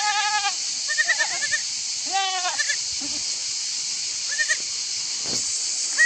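A young miniature goat kid bleating several times in short, high, quavering calls, over a steady high hiss.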